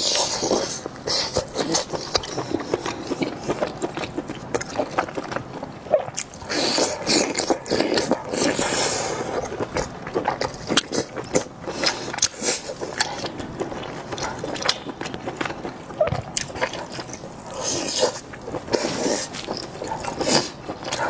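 Close-miked mukbang eating: a chili-sauce-coated sausage ring being pulled apart by gloved hands, then wet chewing and mouth smacking, a steady run of small clicks and squelches with louder stretches of chewing.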